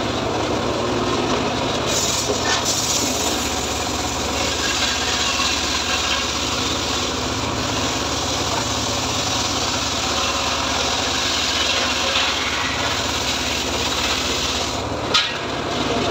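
Homemade engine-driven log saw (gergaji srekel) ripping a teak log lengthwise into planks: the engine running steadily under the continuous sound of the blade cutting through the wood, with one sharp knock near the end.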